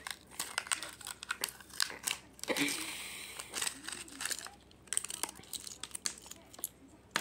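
Wrapper from a Kinder egg crinkling and crackling as a hand handles it close to the microphone, a dense run of sharp crackles with a louder rustle about two and a half seconds in.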